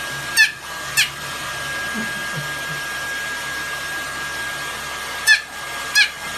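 A steady whirring hum with a fixed high tone, like a small electric blower. Twice it is broken by a pair of short, high squeaks that fall quickly in pitch, about half a second apart.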